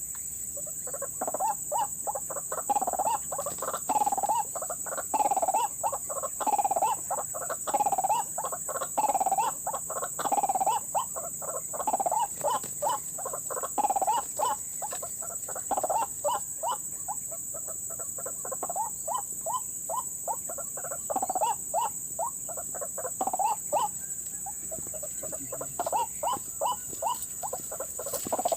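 White-breasted waterhen (ruak-ruak) calling over and over, a repeated croaking "ruak" about once a second, then quicker, faster-running notes in the second half.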